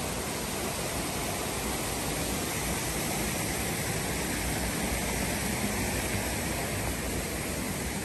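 Rushing water of a rocky stream, a steady even hiss.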